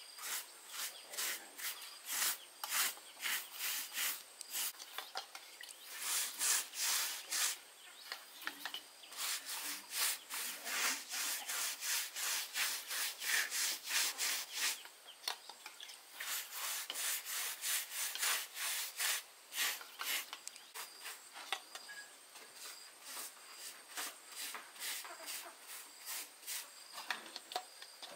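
A hand tool working wood with quick, even back-and-forth rubbing strokes, one after another with short lulls between runs.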